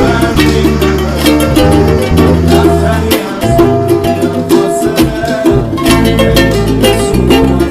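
Background music with a steady beat: plucked strings over a bass line.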